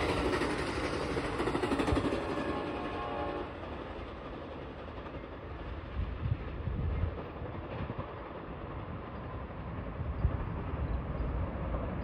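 Passenger train horn sounding as the train's cars pass close by, the horn cutting off about three and a half seconds in. Then a low rumble with occasional clanks as the train moves away.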